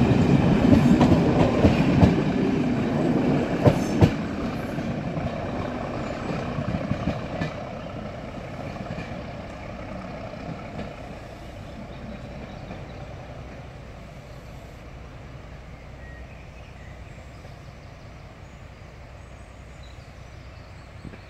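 A train of railway coaches running past on jointed track, its wheels clattering with a few sharp clicks over the rail joints. The sound fades steadily as the train pulls away into the distance.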